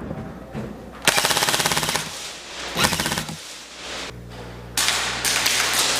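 Airsoft guns firing on full auto in rapid rattling bursts: one lasting about a second, a shorter one near the middle, then a denser stretch of fire near the end.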